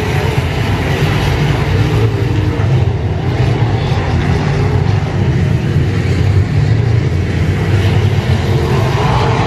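A pack of IMCA Modified dirt-track race cars with V8 engines running at race speed around the oval, making a steady, loud engine drone from many cars at once.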